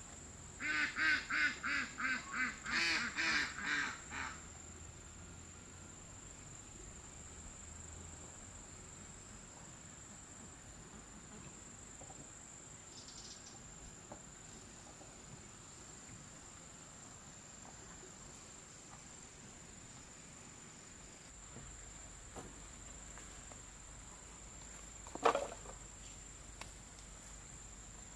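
Ducks quacking in a quick run of about a dozen short calls over the first four seconds, then quiet except for a steady high-pitched hum and one short call near the end.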